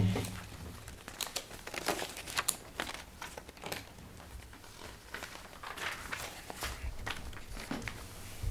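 Sheets of paper rustling and being shuffled, in short irregular crackles and clicks.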